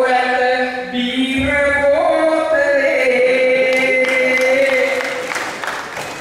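A man sings a Sinhala kavi verse through a microphone and PA in long, drawn-out notes. In the second half the singing fades into laughter and scattered clapping.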